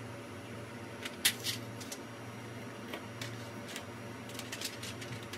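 Clear plastic keyboard dust cover and tray clicking and tapping as they are handled and set down: a sharp click about a second in, then scattered lighter taps, over a steady low hum.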